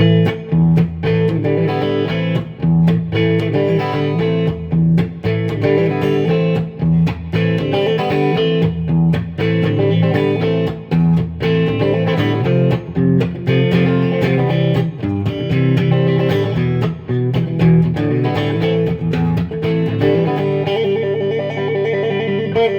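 Gretsch G5126 electric guitar with DeArmond/Dynasonic-style pickups, played through an amplifier: picked single notes and chords. It starts right at the beginning, and there is a quick run of repeated notes near the end.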